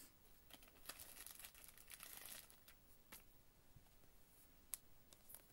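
Faint rustling and a few light clicks of trading cards in rigid plastic holders being handled and stood up on display stands, with one sharper click about three-quarters of the way through; otherwise near silence.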